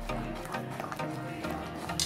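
Background instrumental music with short plucked-string notes.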